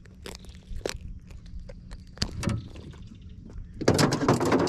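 A blue catfish being handled and unhooked in a boat: scattered knocks and clicks, then near the end a loud burst of thrashing and knocking lasting under a second.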